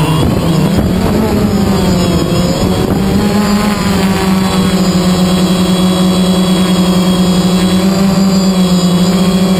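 DJI Phantom quadcopter's electric motors and propellers humming loudly and steadily, recorded by the GoPro mounted on the drone itself. The pitch dips briefly about half a second in, then holds level.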